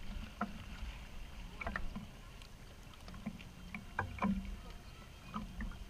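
Swimming-pool water sloshing and splashing close to the microphone, with short irregular splashes over a low rumble.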